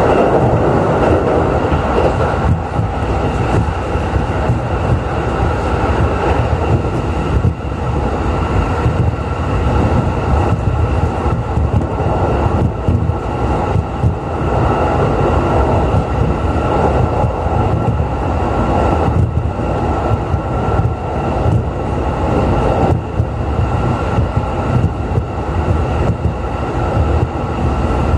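JR East E531 series electric train running at speed, heard from inside the carriage: a steady rumble of wheels on rail with a constant faint high hum over it.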